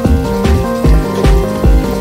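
Background music: an electronic track with held notes over a steady bass-drum beat, about two and a half beats a second.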